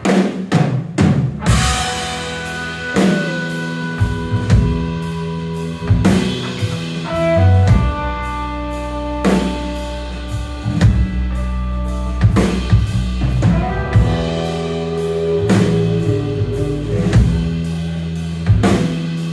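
Live rock band playing: drum kit with kick and snare hits over electric bass and electric guitars, starting abruptly at full volume after a quieter lead-in.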